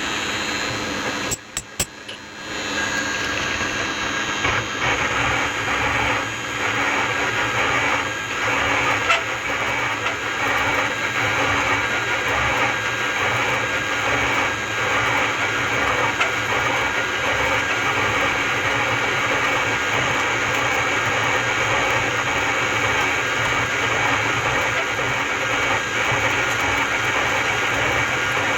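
Milling machine cutting the head of a metal railway part: a steady machine whine with several held tones over a cutting hiss. A few sharp clicks and a brief dip come in the first two seconds before it settles into the steady cut.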